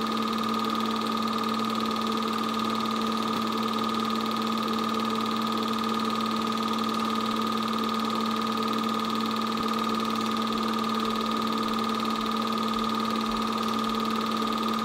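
8mm film projector running: a steady motor and fan hum with a constant higher whine, unchanging throughout.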